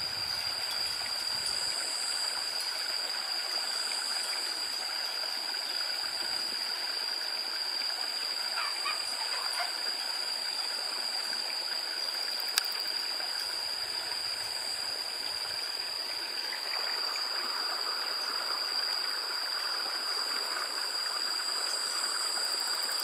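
Steady rushing of a flowing stream, with a steady high-pitched tone over it and a single sharp click about halfway through.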